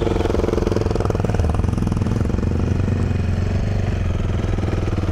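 Single-cylinder dual-sport motorcycle engine idling steadily.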